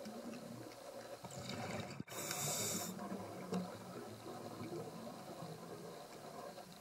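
Underwater recording noise from a camera on the seabed: a steady low wash of water. About two seconds in there is a sharp click, then a short high hiss lasting under a second.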